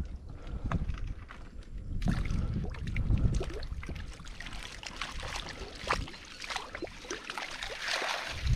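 Long-handled dip net being swept through the water inside a bamboo fish trap and lifted out, with irregular splashes and sloshing, then water streaming off the mesh near the end.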